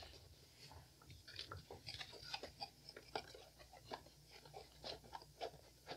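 Faint, irregular small clicks and taps of small objects being handled, with no steady rhythm.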